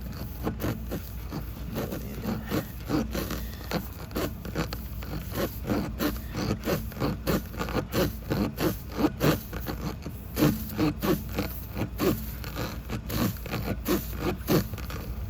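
Tire plug kit's spiral reamer being pushed in and out of a puncture in a rubber car tire to clean out the hole, making repeated rasping scrapes at about two to three strokes a second.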